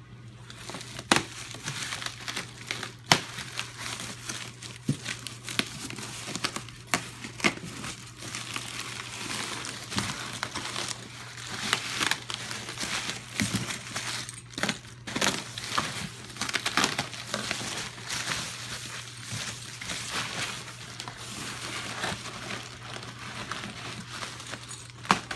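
Bubble wrap and plastic packing film being handled and pulled out of a cardboard box, crinkling continuously with many sharp, irregular crackles.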